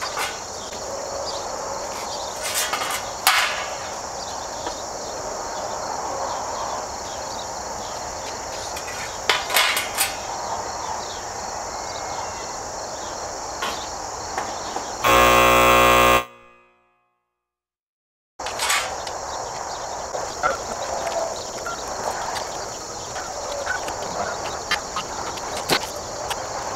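Galvanized sheet-metal nest-box panels being handled, giving scattered light metallic clanks and taps over a steady chorus of crickets. About halfway through, a loud steady pitched tone sounds for about a second and then the sound drops to dead silence for about two seconds.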